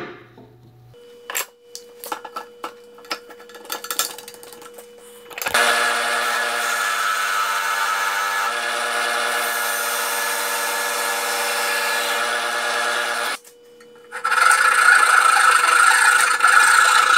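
A drill press run as a lathe, its motor humming steadily, with a few knocks and clicks as a rest is clamped in place. Then a turning tool scrapes into the spinning wooden blank for about eight seconds and stops abruptly. After a short pause a hand saw is held against the spinning wood to part it off.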